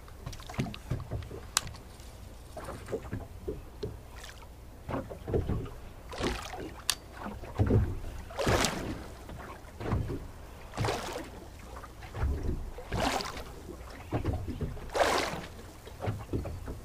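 Small waves slapping and sloshing against a boat's hull, louder swashes coming about every two seconds in the second half, over a low steady rumble.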